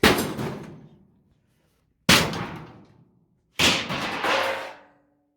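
Harbor Freight sheet-metal toolbox being struck hard three times during a durability test, each loud metallic bang ringing out for about a second; the last leaves a lingering steady ring.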